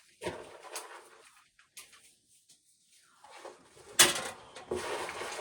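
Dry corn husks rustling and crackling as ears are husked by hand, with a quiet pause in the middle and a sharp crack about four seconds in.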